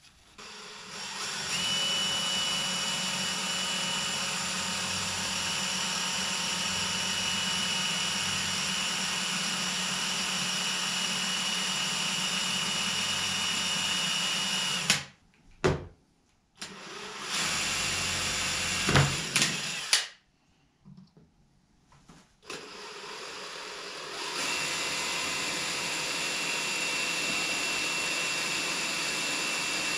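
Electric power tool running steadily with a thin high whine, stopping abruptly twice for a second or two and then running on.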